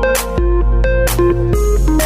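An electronic smartphone ringtone playing: a synth melody stepping from note to note over a heavy, sustained bass, with drum hits.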